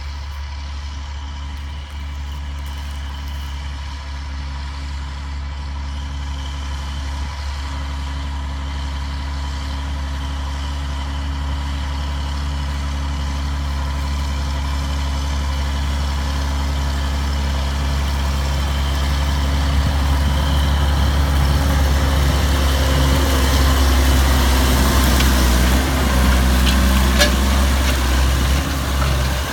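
Doppstadt Trac 160 tractor's diesel engine running steadily under load while pulling a disc harrow through stubble. It grows steadily louder as the tractor comes close.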